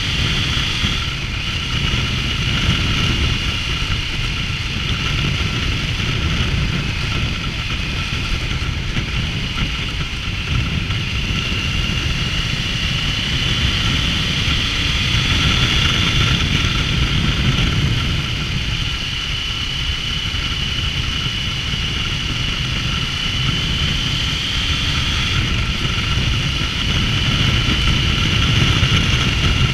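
Triumph Tiger 900's three-cylinder engine running as the motorcycle is ridden along at a fairly steady speed, a steady whine over a low rumble, its pitch rising and falling slightly with the throttle.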